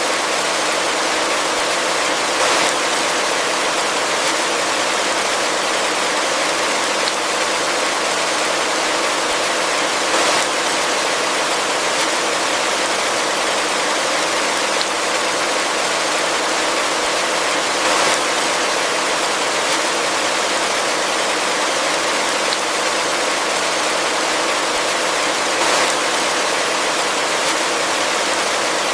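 Heavy rain falling steadily, an even hiss with no low rumble, and a few slightly louder splashes spaced several seconds apart.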